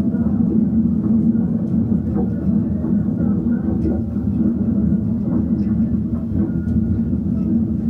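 A steady low mechanical rumble with a constant hum, unbroken throughout.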